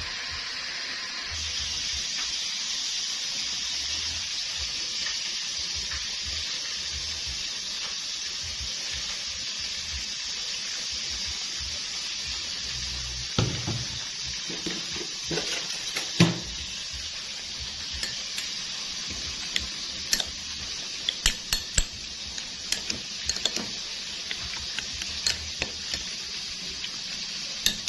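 Metal spoon stirring a chilli dipping sauce in a small ceramic bowl: scattered clinks and scrapes against the bowl start about halfway through and come thick and fast near the end, over a steady hiss.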